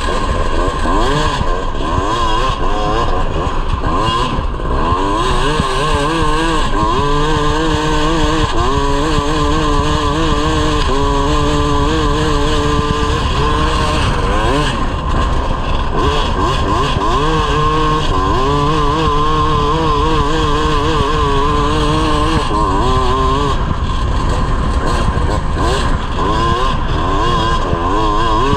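Yamaha YZ250 two-stroke single-cylinder engine in a grass kart, revving up and dropping back over and over, with stretches held at high revs as the kart skids on grass.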